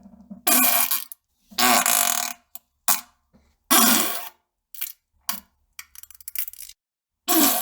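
A run of farts during a bowel movement: four loud bursts of up to a second each, with shorter sputters and crackles between them.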